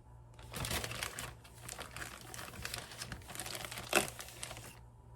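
Crinkling and rustling as a measuring cup scoops flour from its bag, with a sharper knock about four seconds in.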